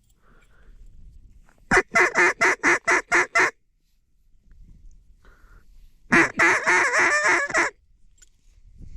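Duck call blown by a hunter: a quick series of about eight loud quacks, then after a pause of a few seconds a faster run of chatter lasting about a second and a half, calling to a flock of ducks in flight.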